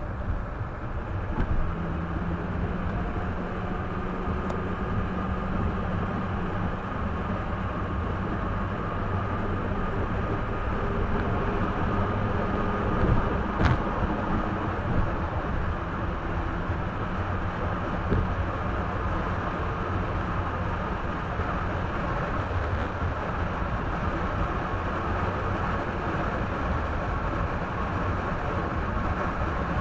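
A car driving, heard from inside the cabin: steady tyre and road noise with the engine running underneath, with a brief knock about halfway through. It is recorded by a windshield dashcam's microphone and played back 1.3 times fast.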